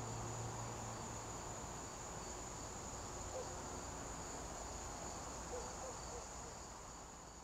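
Crickets trilling in one steady, continuous high-pitched chorus that fades out at the very end.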